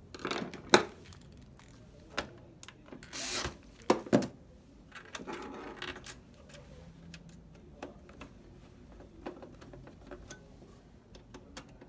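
Scattered clicks and knocks of a screwdriver and screws on a PS4's plastic and metal parts while the power supply is screwed back in, with a short scrape about three seconds in.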